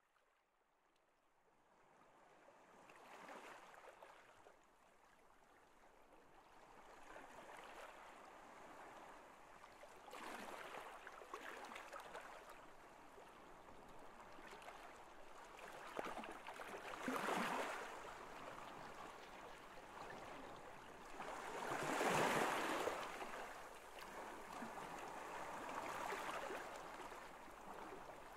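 Rushing water, fading in from silence and then swelling and easing every few seconds.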